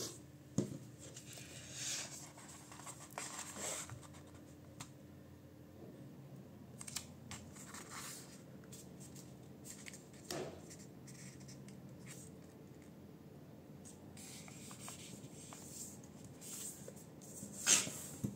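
A4 printer paper being folded and creased by hand: scattered rustles and fingers rubbing along the folds, with a few sharper crackles, the loudest near the end.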